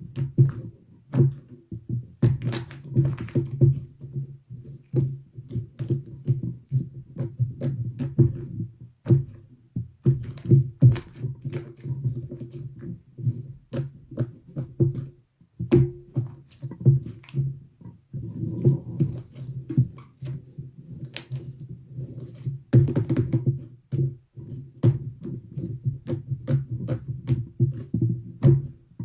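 Slime being squished, stretched and poked by hand, with fast irregular clicking and popping over a low squelching sound.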